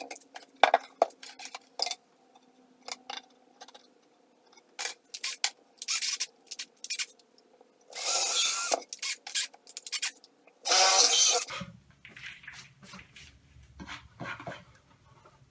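Cordless drill boring holes through 3/4-inch maple plywood, two short runs of about a second each about three seconds apart, with clicks and knocks of the drill and workpiece being handled in between.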